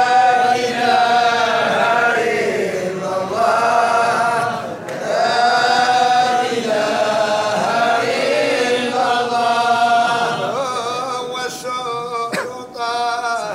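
A group of men chanting Sufi madih (devotional praise poetry) together in unison, unaccompanied, in long held melodic lines that rise and fall.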